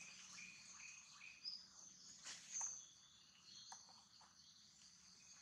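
Faint woodland ambience of chirping insects and birds. A run of short high chirps repeats about twice a second in the first second or so, higher chirps follow a couple of seconds in, and a few soft ticks are scattered through.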